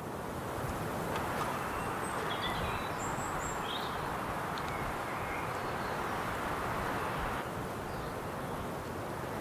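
Outdoor ambience: a steady hiss of noise that grows louder about a second in and drops back near the end, with a few short bird chirps over it.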